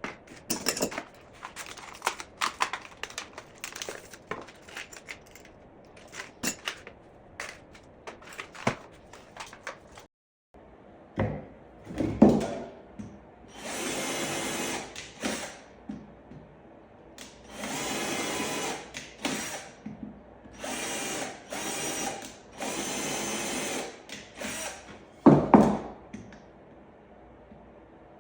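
Power drill driving screws into wood in about four short steady runs, with clicks and knocks of wood and hardware being handled beforehand and two heavy thumps.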